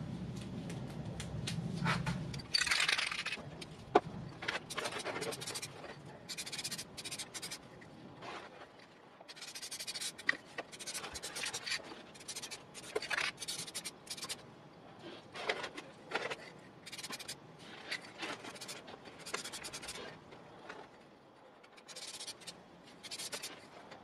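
Aerosol can of Bilt Hamber Dynax UB wax rust proofer sprayed in many short bursts, each a brief hiss of a second or less with short pauses between, as the metal is coated against rust.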